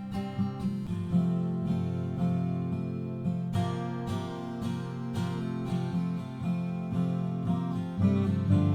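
Acoustic guitar being strummed, chords ringing with repeated pick strokes.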